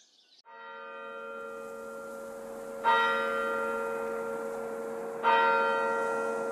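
Church bell tolling slowly for early-morning mass: the ringing comes in about half a second in, then two more strokes about two and a half seconds apart, each ringing on and slowly fading.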